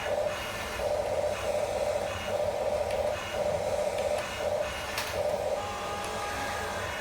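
Small electric motors of a Huina radio-controlled toy construction vehicle whirring in short stop-start runs, then a steadier whine from about five and a half seconds in.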